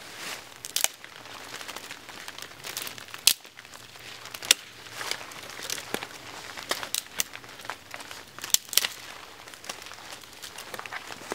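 Small dead twigs being snapped off a tree by hand: irregular sharp snaps and crackles, a few much louder than the rest, over the rustle of branches.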